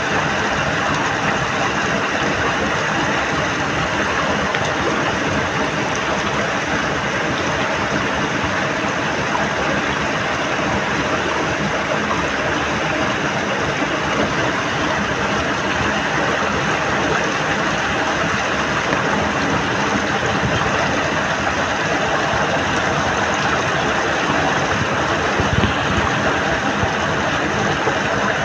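Muddy water rushing steadily through a narrow cut in an earthen bank, with a few louder splashes near the end.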